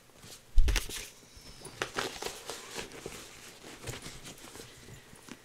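Handling noise as a stitching project and its fabric project bag are put away: one knock with a dull thud about half a second in, then scattered light rustles and clicks.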